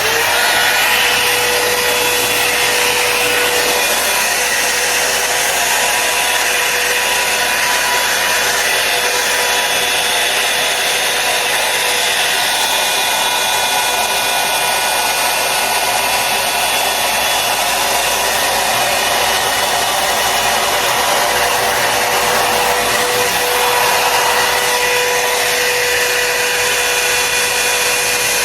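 Blow dryer brush running, a steady rush of air with a steady whine, switched on right at the start.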